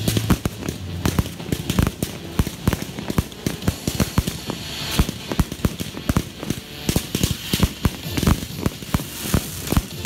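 Fireworks display: a rapid, irregular string of sharp bangs and crackles from bursting aerial effects, several a second.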